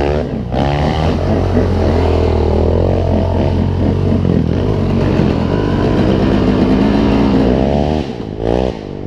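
KTM two-stroke dirt bike engine revving up and down under the rider, the pitch rising and falling with the throttle; the engine, which the rider thinks is running lean and overheating, drops off sharply about eight seconds in.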